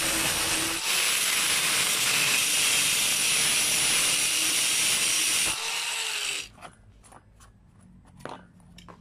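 Angle grinder running and cutting slots into a small disc, a harsh steady grinding noise. About six seconds in it is switched off and its pitch winds down, leaving only a few faint clicks of handling.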